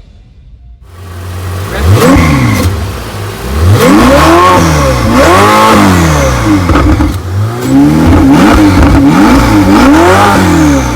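Ferrari 488 GTB's twin-turbo V8 being revved in a series of quick blips, the pitch rising and falling again and again, with a loud rev about two seconds in and a run of several blips in the second half.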